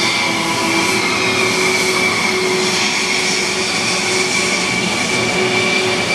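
Jet engine of a Thunderbirds F-16 taxiing past close by: a steady high-pitched whine over a loud rushing noise.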